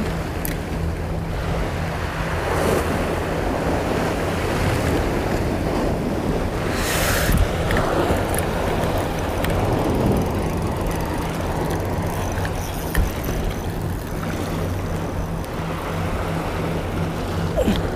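Sea waves surging and washing against shore rocks, swelling a few times, with wind on the microphone and a steady low hum underneath.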